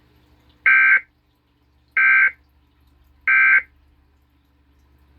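Emergency Alert System end-of-message code: three short, identical bursts of SAME digital data tones, a little over a second apart, signalling that the alert broadcast is over.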